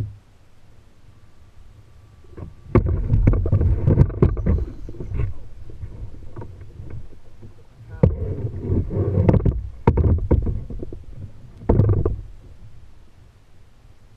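Knocking and low rumbling on a plastic kayak's hull in three bursts, the longest a couple of seconds each, while a large longnose gar is fought on rod and line.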